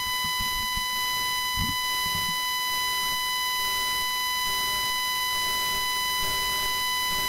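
A failed microphone puts out a steady high-pitched feedback tone, one unchanging whine with a ladder of overtones above it. The mic has gone down.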